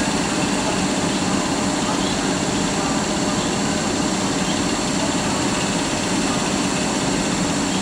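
Polish EU07 electric locomotive standing with its auxiliary machinery running, a loud steady hum that does not change.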